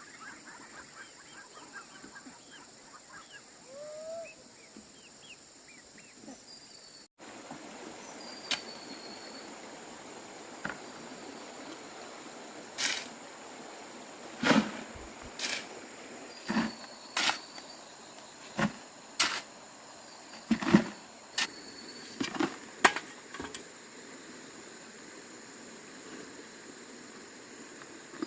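A series of about a dozen sharp knocks, irregularly about one a second, starting several seconds in and stopping a few seconds before the end. A steady high insect buzz of crickets runs underneath.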